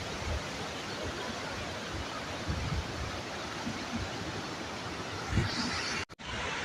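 Steady rushing roar of a large river waterfall, Nabuyole Falls on the River Nzoia, with a few low bumps on the microphone. The sound drops out for a moment near the end.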